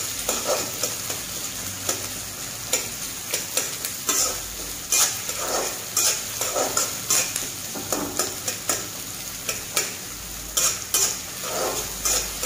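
Cubed onions sizzling in hot oil in a metal karahi while a metal spatula stirs them, scraping and clicking against the pan at an irregular pace: the onions being lightly sautéed.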